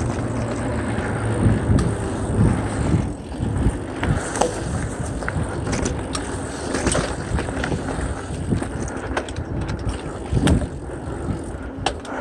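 Mountain bike rolling fast down a dirt trail: tyres rumbling over the ground, with knocks and rattles from the bike over bumps, a few louder thumps among them.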